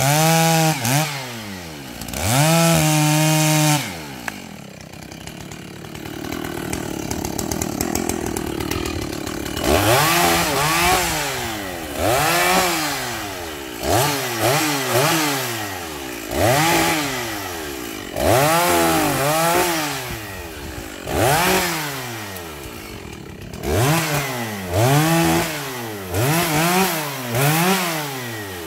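Makita DCS 6400 two-stroke petrol chainsaw cutting at steady full throttle for the first few seconds. It then drops to a lower, steady run for about five seconds. After that it is revved up and let back down over and over, roughly once a second, as it cuts through branches.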